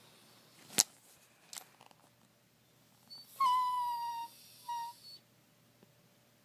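Rat terrier giving a high, thin whine with a whistle-like tone: one held note of about a second, then a short second one. A sharp click comes about a second in.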